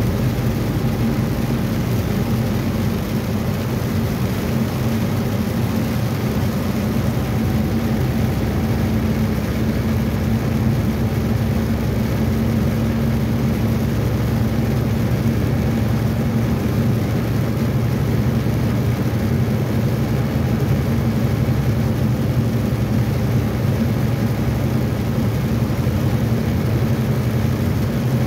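A truck's engine drones steadily at cruising speed, heard from inside the cab, along with constant road and tyre noise.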